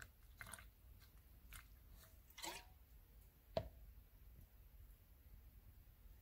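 Near silence with faint soft liquid and handling noises as activator is poured into a plastic paint mixing cup of sealer, and one sharper click about three and a half seconds in.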